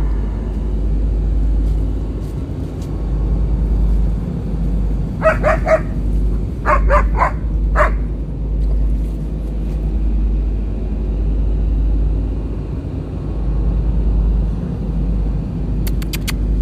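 German shepherd barking: two quick bursts of three sharp barks and then a single bark, about five to eight seconds in, over a steady low rumble.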